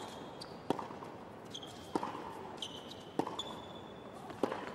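Tennis racquets striking the ball in a baseline rally: four sharp hits about a second and a quarter apart, alternating between the two players. Short, high shoe squeaks on the hard court come between the hits.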